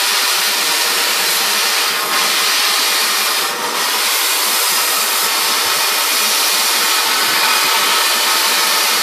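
Cutting torch hissing steadily as it cuts through a car's exhaust heat exchangers, the hiss dipping briefly about two and three and a half seconds in.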